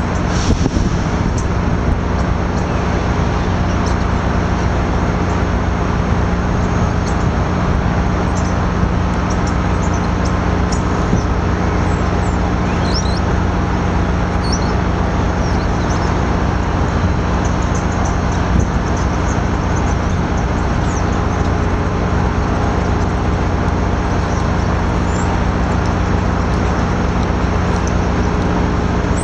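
Amtrak Downeaster diesel passenger train idling at a standstill: a steady, unchanging engine drone with a constant low hum.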